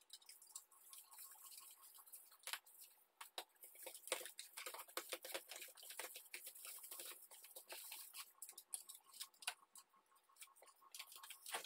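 Faint, irregular crinkling and crackling of aluminium foil as hands press it flat against the inside walls of a cardboard box.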